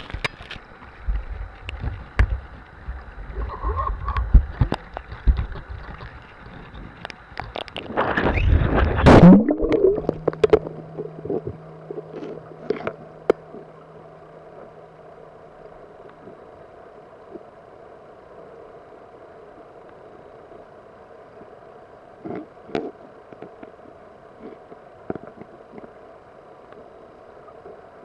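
Underwater sound of a river heard through a submerged camera: knocks and bumps from handling over the first several seconds, a loud gurgling rush of water about eight seconds in, then a steady muffled hum of flowing water with occasional faint clicks.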